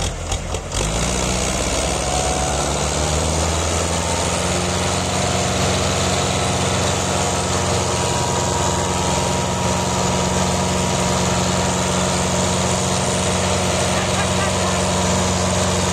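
Belarus 510 tractor's diesel engine working under load as it pulls a heavily loaded trailer. The engine note is uneven for the first second, rises a little, then holds a steady drone.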